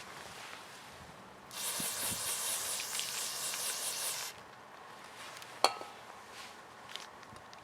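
A steady hiss, like a spray, starting about one and a half seconds in and lasting about three seconds, then a single sharp click.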